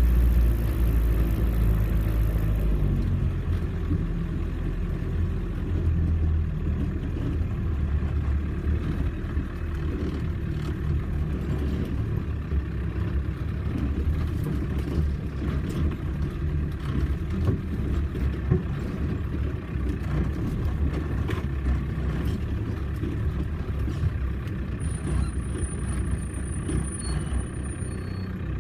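Off-road vehicle's engine running steadily at low revs, a low rumble, with scattered knocks and rattles throughout.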